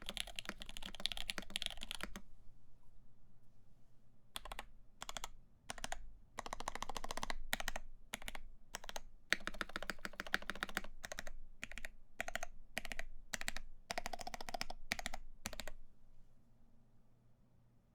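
Typing on a CAKE60 mechanical keyboard with lubed Lavender switches, an FR4 plate and GMK keycaps: a fast run of keystrokes, a pause of about two seconds, then bursts of keystrokes with short gaps until the typing stops near the end.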